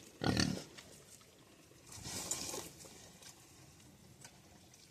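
Pigs snuffling and moving close to the microphone: two short sounds, a fuller one near the start and a softer, breathier one about two seconds in.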